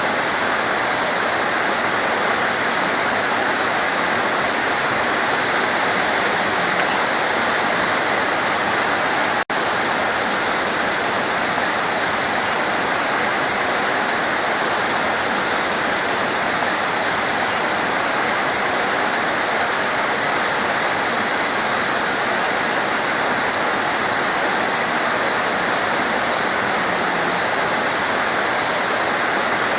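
Heavy torrential rain falling in a dense, steady hiss, briefly cutting out once about nine seconds in.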